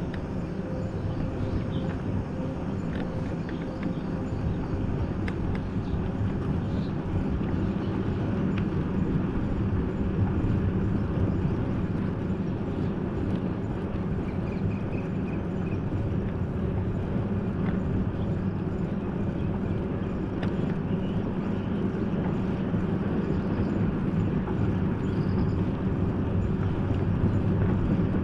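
Vehicle engine running steadily with road noise, a constant low hum that holds without any change in speed or pitch.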